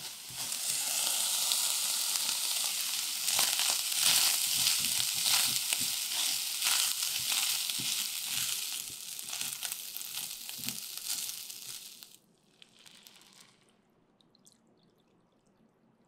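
Ground pork, mushrooms and raw rice sizzling in a small pot while a wooden spatula stirs and scrapes them. The sizzle cuts off about twelve seconds in, leaving only faint scattered sounds.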